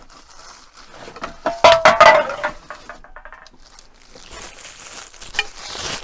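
Metal parts and tools clattering and clinking with a short ring, about a second and a half in, as they are shifted about on a workshop shelf; a soft rustling hiss builds toward the end.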